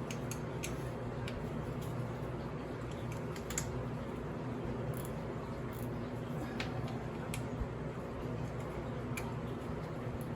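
Scattered light metallic clicks of an 8 mm wrench working the bolt on a dirt bike's gear shift lever, over a steady low hum.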